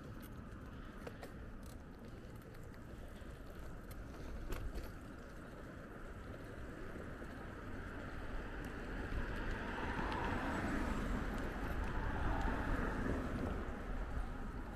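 Riding noise from a bicycle: a steady low rumble of tyres and wind on the microphone, with a few light clicks in the first seconds. A broad rush of noise swells from about eight seconds in and eases off near the end.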